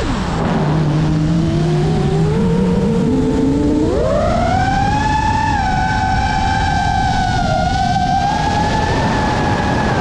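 FPV quadcopter's brushless motors whining, the pitch following the throttle: it drops sharply at the start, climbs slowly, then rises quickly about four seconds in and holds high. A steady rush of propeller and air noise runs underneath.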